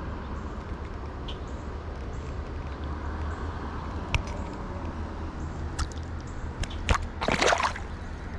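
Creek water running steadily, with a few small clicks and a short splash about seven seconds in.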